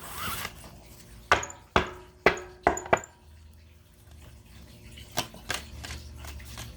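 Tarot cards being handled on a table: a short rustle, then a quick run of five sharp taps and clicks, with two fainter taps later.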